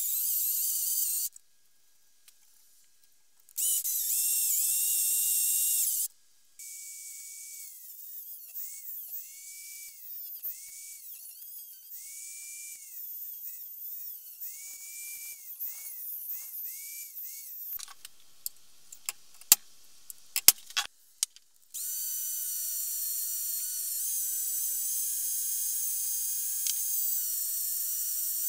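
Electric drill boring into the rusty steel of an axe head with a high-pitched whine, in two short bursts at the start. A small rotary tool with an abrasive cutoff disc then grinds at the steel for about eleven seconds, its whine wavering as it cuts. After a few sharp clicks, the drill runs steadily again near the end.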